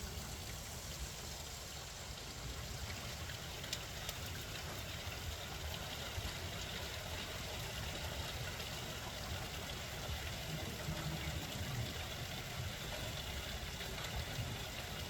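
Steady rain falling, with rainwater trickling and running, over a low rumble.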